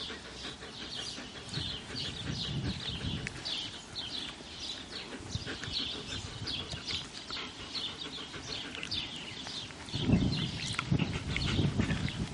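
Six-week-old German Shepherd puppies play-wrestling on dry dirt: scuffling and rustling, with quick high chirps repeating throughout. The scuffling grows louder about ten seconds in.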